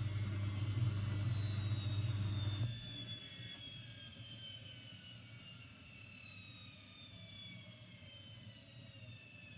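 AEG washing machine winding down at the end of its spin cycle: a loud low hum drops away suddenly under three seconds in, and the motor's high whine falls steadily in pitch and fades as the drum slows.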